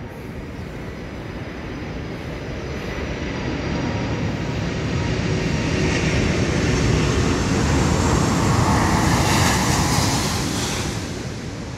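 An aircraft flying over. Its engine noise swells steadily to a peak about eight to ten seconds in, then fades away.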